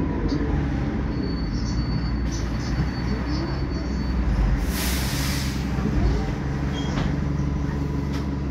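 Diesel engine of an ADL Enviro 300 single-deck bus running low and steady, heard from inside the passenger cabin. About five seconds in there is a short hiss of released air from the bus's air system.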